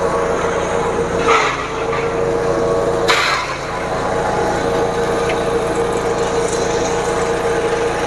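Engine-driven forage chopper running steadily under load with a constant whine, chopping papaya tree trunk; two brief, noisier crunching bursts come about one and three seconds in.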